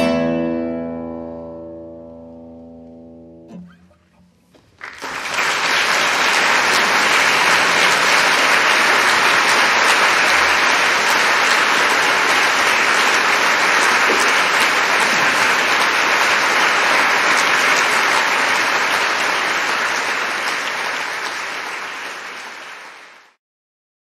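A nylon-string classical guitar's final chord rings and dies away over about three and a half seconds. An audience then applauds steadily for most of the rest, fading out near the end.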